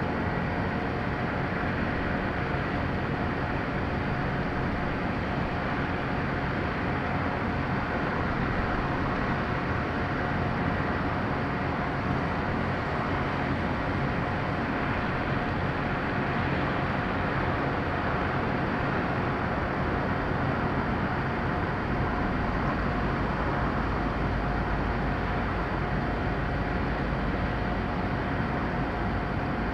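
Four-engine turbofan jet airliner (Antonov An-124) running steadily at low power as it taxis, a continuous rumble with a steady whine over it. The low rumble grows a little stronger about two-thirds of the way through.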